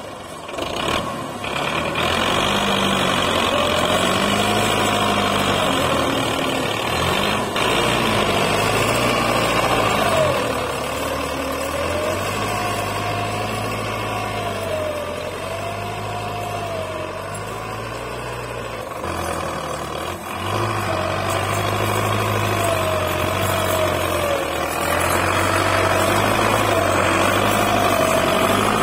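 Belarus 510 tractor's diesel engine running while the tractor works across a tilled field, picking up in the first couple of seconds. Its pitch rises and falls in a slow, regular swing about every two seconds, and the sound is fainter in the middle as the tractor moves off and then returns.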